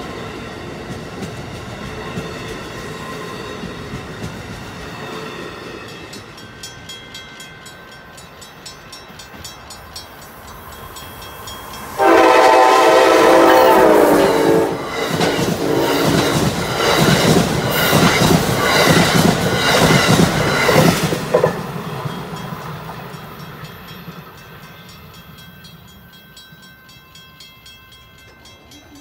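A passing train rumbles and fades. About twelve seconds in, an Amtrak electric locomotive sounds one long horn blast of about two and a half seconds. It then rushes past close by with its passenger cars, wheels clicking over the rail joints, and the sound dies away.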